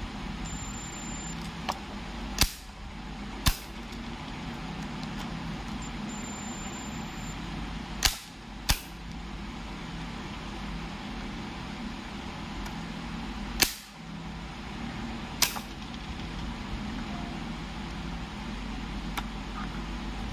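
Sharp clicks, six of them at irregular intervals, over a steady background hum, as multimeter probes are set against the terminals of an opened moulded case circuit breaker during a continuity check.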